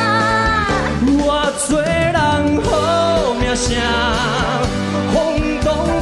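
Taiwanese Hokkien pop song playing: a lead vocal melody with vibrato and pitch slides over a full band backing.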